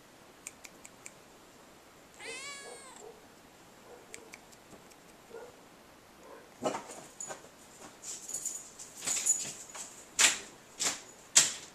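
A kitten gives one short meow, then a run of scratchy rustling strokes follows, getting louder toward the end.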